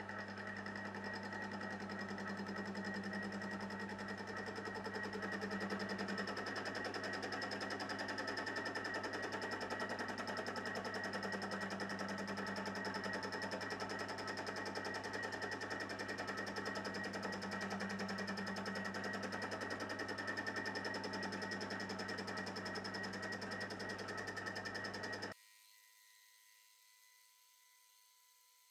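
TOS milling machine running steadily with its cutter skimming the deck face of a Cummins 6.7 cylinder head. About 25 seconds in the machine sound cuts off abruptly, leaving only a faint electrical hum.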